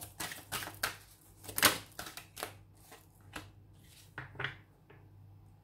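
Tarot cards being handled and laid down on a cloth-covered table: a quick run of short, crisp card snaps and flicks, the loudest about a second and a half in, thinning out near the end.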